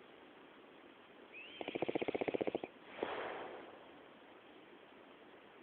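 A man snoring: one rattling, fast-fluttering snore about a second and a half in, opening with a faint high whistle. It is followed by a breathy rush of breath that fades away.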